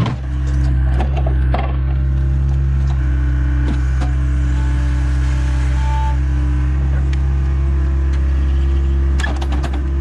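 Engine of heavy construction equipment running steadily, with occasional sharp knocks and clicks and a cluster of them near the end.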